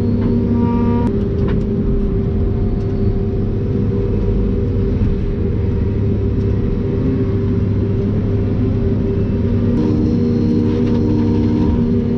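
John Deere 753G harvester's engine running steadily: a continuous low drone with a few steady tones in it.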